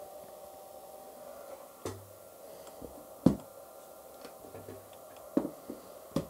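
The two small 40 mm cooling fans of a Leaperkim Sherman's 5 A charger running with a steady, fairly quiet whir and hum, close to the microphone. From about two seconds in come a few knocks of the charger's case being handled and set down on a table, the loudest a little past three seconds in.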